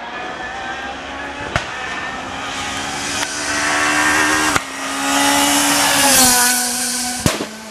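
Rally car engine at full throttle, its pitch climbing and breaking off at gear changes as it gets louder, then dropping in pitch as the car passes close by.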